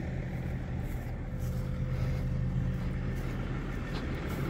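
Range Rover's 3.0 straight-six diesel engine idling steadily, with a faint click about four seconds in.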